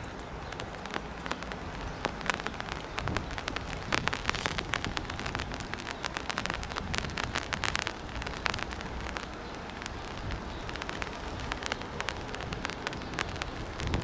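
Rain falling, with many irregular drop ticks hitting close to the microphone over a steady hiss.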